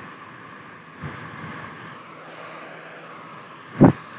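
Hair dryer running with a steady blowing noise, broken by a soft thump about a second in and a much louder thump near the end.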